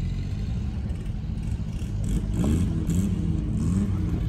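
Air-cooled VW-engined dune buggy running off-road: a steady low engine rumble, then from about halfway through the engine revs up again and again in short quick rises.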